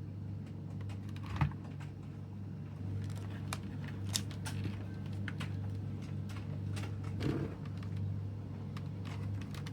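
Scattered light clicks and taps, irregular and about one or two a second, with one louder tap about a second and a half in, over a steady low hum.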